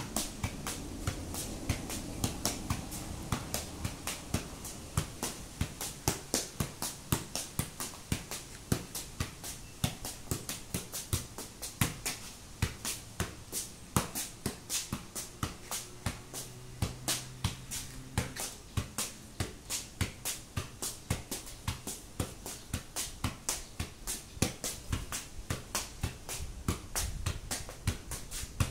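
Football being juggled with the feet: a steady run of kicks on the ball, about two to three a second.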